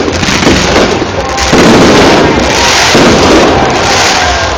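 Fireworks display: a continuous barrage of overlapping bursts and crackling with no pause.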